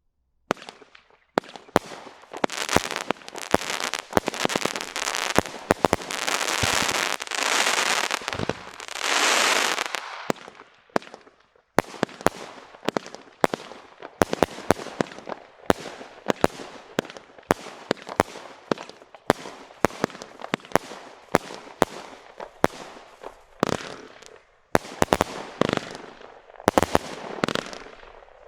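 Standard Fireworks consumer multi-shot firework cake firing: a rapid run of shots with crackle. The crackling swells in waves over the first ten seconds, then gives way to separate shots about twice a second with lighter crackle.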